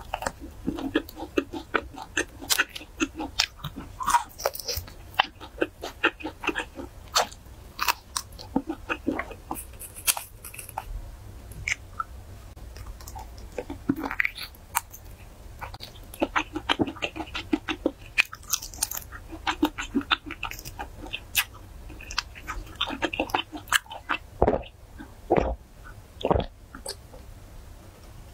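Close-miked chewing of crunchy food, with many sharp, irregular crunches and bites.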